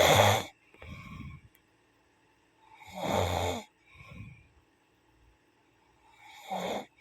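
Snoring in a slow, regular rhythm: a loud rasping snore about every three seconds, each followed by a softer, shorter breath out.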